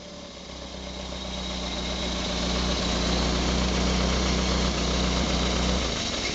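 Freshly prepared Renault Frégate four-cylinder engine running steadily on an engine stand during its first start, its exhaust unsilenced. Its low hum stops near the end while a hiss carries on.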